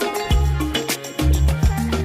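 Background music with a steady beat: bass notes under regular percussion hits.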